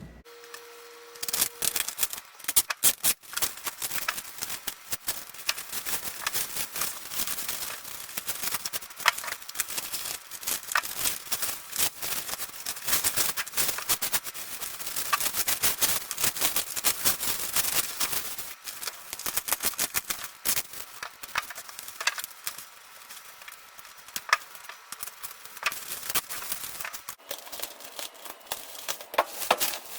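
Packaging being handled and opened by hand: continuous rustling and crackling with many small irregular clicks.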